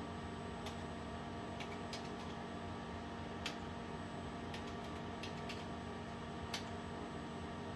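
Keystrokes on a Logitech computer keyboard: about a dozen separate taps at an uneven pace, two of them sharper than the rest, over a steady low hum.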